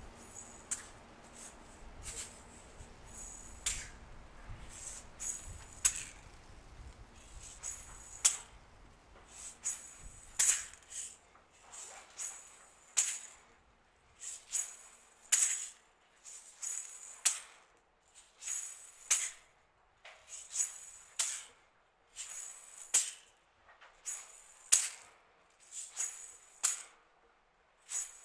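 Dry, shaker-like rattling in short bursts, about one a second in a loose rhythm, over a low rumble that fades out about a third of the way in; the rattles stand out more clearly after that.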